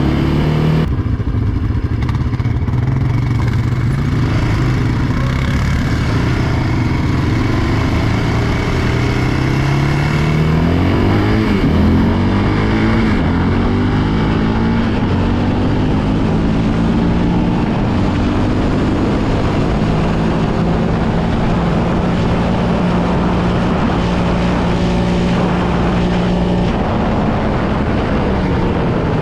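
Yamaha Raptor 700R single-cylinder four-stroke quad engine running under way, its pitch rising and falling with the throttle and gear changes, climbing to a higher steady note about twelve seconds in.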